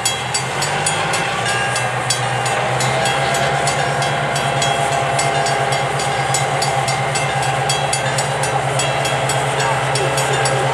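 EMD GP10 diesel-electric locomotive running past at low speed. Its 16-cylinder 567 engine picks up speed over the first couple of seconds, then runs steadily as the train moves through the crossing. Over it the grade-crossing bell rings in a steady rapid rhythm.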